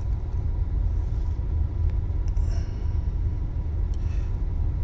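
A steady low rumble of background noise, with a faint steady tone above it.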